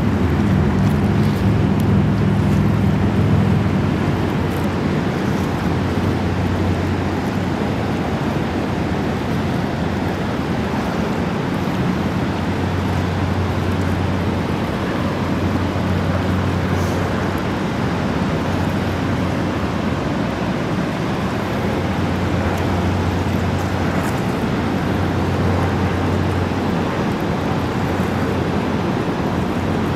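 Steady rushing of the upper Niagara River rapids pounding around a wrecked iron scow, with a low engine hum that fades about four seconds in and a fainter low hum that comes and goes.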